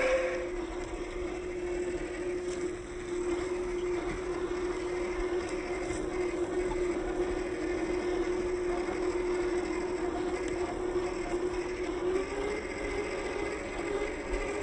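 Electric drive of a 1/10 scale RC Land Rover Series III crawler (Hobbywing Fusion brushless motor and gearbox) whining steadily at crawling speed, the pitch rising a little near the end as it speeds up.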